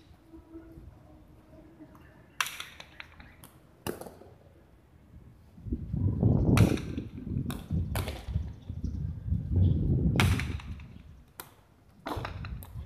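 A jai alai rally: the hard pelota cracks sharply against the fronton wall and court floor, about nine impacts spaced roughly a second apart. Through the middle of the rally there is a low rumble.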